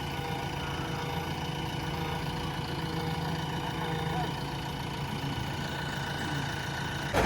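Diesel engine of a tractor or backhoe loader idling steadily.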